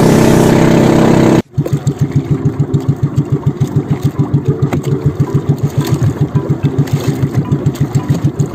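Outrigger fishing boat's engine running loudly; about a second and a half in, the sound cuts, then the engine runs slowly with an even beat of about eight pulses a second.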